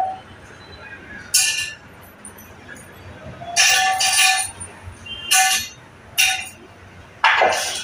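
Loose metal engine parts and hand tools clinking against each other and the floor as they are picked up and set down. There are about six sharp, ringing metallic clinks, spaced irregularly.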